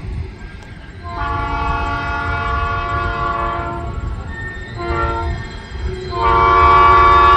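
Diesel locomotive air horn sounding a long blast, then a short blast, then another long blast that comes in louder near the end, the pattern of a grade-crossing warning. A steady low rumble lies underneath.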